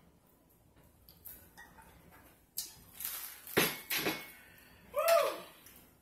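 Eating and drinking noises at a table: a run of loud, noisy mouth and slurping sounds in the middle, then a short high vocal sound that rises and falls about five seconds in.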